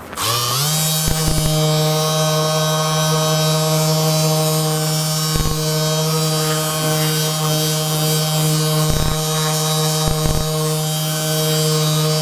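Small electric motor starting up, its pitch climbing for about half a second, then running at a steady buzz, with a few short knocks over it.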